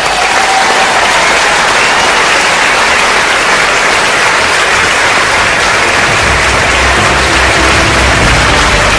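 Large audience clapping, a dense, steady applause. Music comes in underneath about six seconds in.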